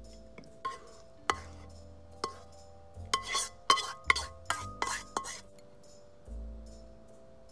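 A spatula knocking and scraping against a nonstick wok as mapo tofu is scraped out onto a plate: a few scattered taps, then a quick run of scrapes and knocks about three to five seconds in, over background music.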